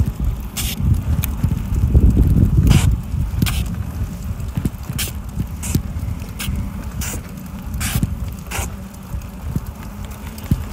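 Bicycle riding along a concrete sidewalk: a steady low rumble of wind on the phone's microphone and the ride, with sharp rattling clicks every second or less.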